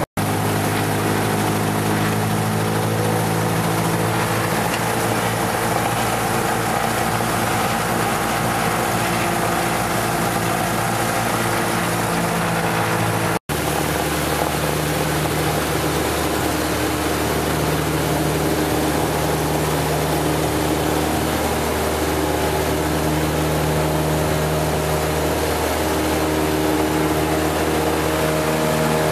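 Single-engine light aircraft's piston engine and propeller heard from inside the cockpit, running steadily during the ground roll on the runway. The sound breaks off for an instant about thirteen seconds in, after which the engine note is slightly different.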